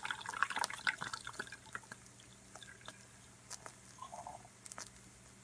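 Esbit stainless steel stovetop espresso maker sputtering and dripping as brewed coffee is forced up through the spout into the top chamber, in irregular small pops and gurgles that are busier in the first two seconds and then thin out.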